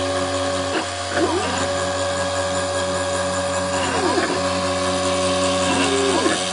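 Mini CNC machine's stepper motors whining as it mills a printed circuit board, the pitch gliding up, holding, and gliding down again with each move of the axes, about three moves, over a steady low hum.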